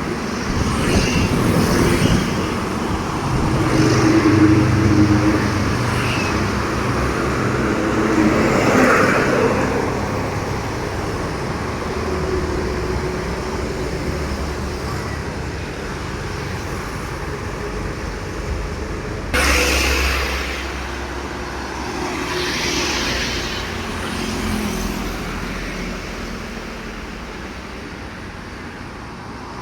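Roadside traffic noise of heavy trucks passing one after another, swelling and fading several times as each goes by. A louder passage starts abruptly about two-thirds of the way in.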